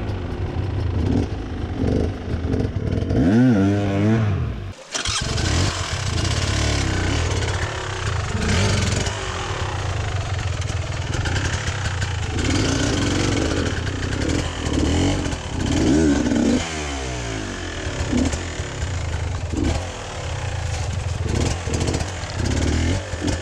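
Enduro dirt bike engine revving up and down in repeated bursts as the bike is worked up a rocky stream bed. The engine sound briefly drops out about five seconds in, then picks up again.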